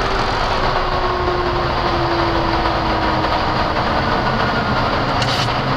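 Steady cockpit noise of a Boeing 737 MAX in its climb after takeoff: a loud, even rush of airflow and engine noise, with a faint tone that slowly falls in pitch.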